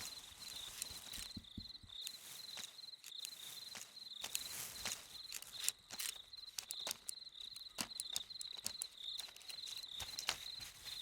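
Insects chirping in a steady, high, evenly pulsed trill, with scattered sharp clicks and crackles like something moving through dry ground cover.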